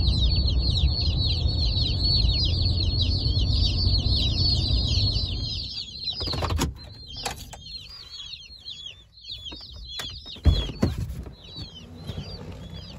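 A boxful of day-old Cornish Cross chicks peeping constantly in rapid high chirps, over the low rumble of the pickup truck driving. About six seconds in the rumble stops as the truck is parked, and a few clicks and knocks follow as the truck door is opened, while the chicks keep peeping.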